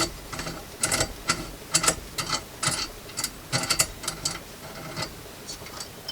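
Metal parts of a hand grain mill clicking and clinking as they are handled and a nut is worked off: irregular sharp clicks, sometimes in quick clusters.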